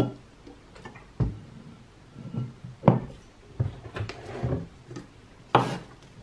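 Kitchen handling sounds: a stainless steel pot set down on the counter with a knock, several more knocks and clatters, then near the end a chef's knife scraping chopped onion across a wooden cutting board.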